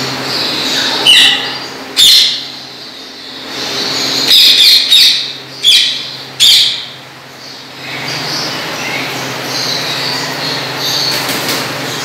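Caged green parakeets giving a series of loud, harsh screeches between about one and seven seconds in, over softer continuous chatter from other birds and a steady low hum.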